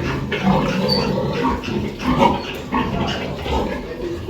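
Pigs grunting in a pigsty: a run of short, irregular grunts.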